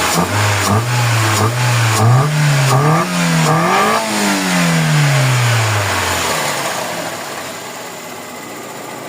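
Toyota 4A-FE 1.6-litre four-cylinder engine revved in a series of short throttle blips. The revs climb in steps to a peak about four seconds in, then fall away smoothly, and the sound quietens after about six seconds.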